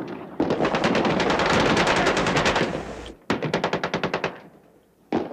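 Submachine-gun fire: a long burst of rapid shots lasting nearly three seconds, then after a brief gap a shorter burst of about ten shots a second, then a single shot near the end.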